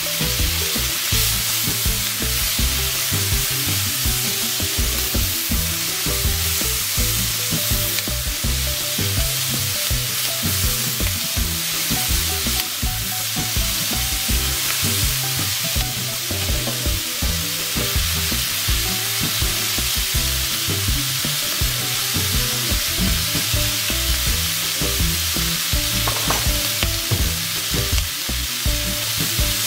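Sliced bell peppers and onion sizzling steadily in a hot oiled pan, stirred and turned with a silicone spatula.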